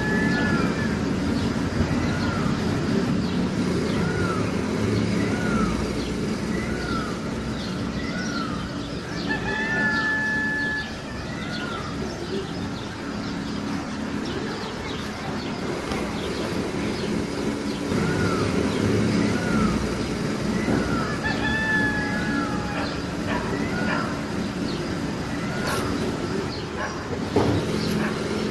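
Birds calling: a run of short rising-and-falling notes repeated roughly once a second, and twice a longer held call. A steady low hum runs underneath.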